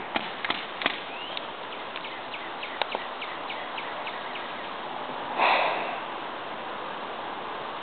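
Paintball markers firing during a game: a few sharp pops in the first second, then a run of fainter, quicker shots until about three and a half seconds in. About five and a half seconds in comes a short, louder burst of noise.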